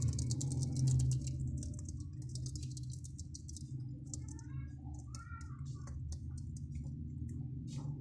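Budgerigar chicks in the nest: rapid high ticking for the first couple of seconds, then a few short wavering chirps around the middle, with scattered ticks after. A steady low hum runs underneath.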